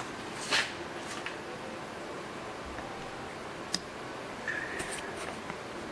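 A hand tap being turned with a tap wrench, cutting threads in a bolt hole in a Ford six-cylinder cylinder head: a few sparse clicks and scrapes, with a short squeak near the end.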